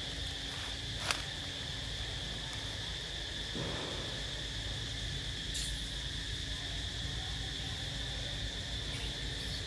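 A steady, high-pitched drone of insects, with a low rumble under it. One sharp click about a second in.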